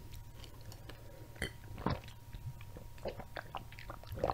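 Soft swallowing and mouth sounds of chocolate milk being drunk from a glass bottle, very close to the microphone: a handful of separate gulps spread about a second apart.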